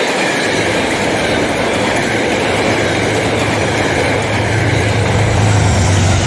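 Passenger train passing close by: a steady rush of wheels on rail as the coaches roll past, with a low hum building in the last couple of seconds as a Metro-North P32AC-DM locomotive draws level.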